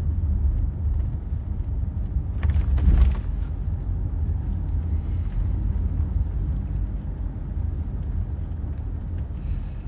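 Road noise inside a moving car's cabin: a steady low rumble. About two and a half seconds in there is a brief rustle or knock, the loudest moment.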